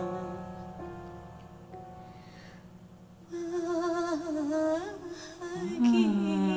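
A female singer's live ballad vocal over soft band accompaniment: a held note fades away about a second in, and after a quiet pause she comes back in about three seconds in with sustained, wavering notes and sliding runs.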